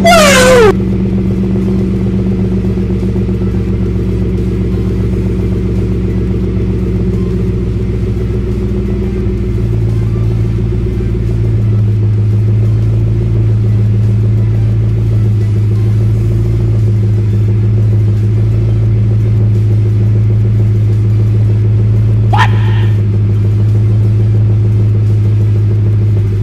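Ford EcoSport's four-cylinder petrol engine idling steadily on its first run after new spark plugs and a cleaned mass airflow sensor: a steady low hum whose tone shifts slightly about ten seconds in. A brief rising chirp comes near the end.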